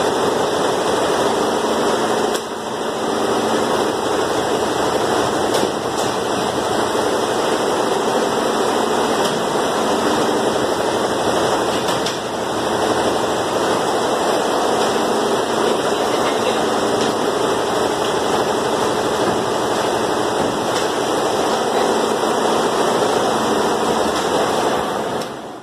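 A steady, unbroken mechanical whirring noise, like a machine or motor running.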